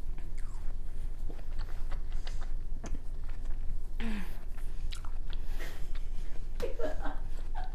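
Close-miked chewing and biting of juicy watermelon, with wet smacking and many small mouth clicks throughout.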